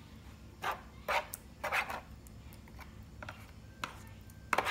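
A few short wet splashes and squelches as pieces of bangus (milkfish) are moved about in a tray of liquid marinade: three in the first two seconds and one near the end.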